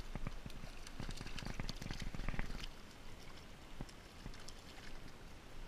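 A hooked trout thrashing and splashing at the surface of shallow creek water as it is drawn to the bank: a rapid run of splashes that dies down a little under halfway through, leaving the steady rush of the stream.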